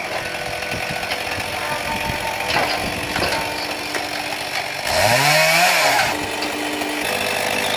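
Chainsaw mounted on a firewood cutting-and-splitting rig, idling with a couple of wooden knocks. About five seconds in it revs up sharply for a cut through a log, then drops back to idle a second later.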